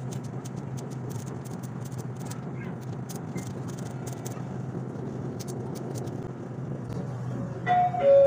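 LRT Line 2 train running between stations, heard from inside the car: a steady low hum and rumble with light rattling clicks. Near the end, a two-note chime, higher then lower, sounds the cue for the next-station announcement.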